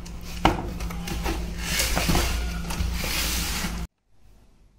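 Cardboard box flaps being pulled open and handled, a rustling scrape with a sharp knock about half a second in. The sound cuts off suddenly shortly before the end.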